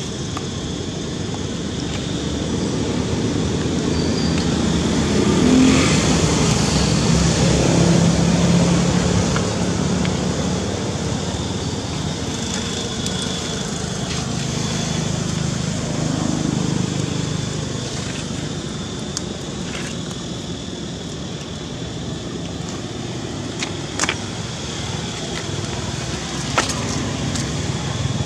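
Road traffic going by: one vehicle swells past a few seconds in and another around the middle, over a faint steady high tone. A couple of sharp clicks sound near the end.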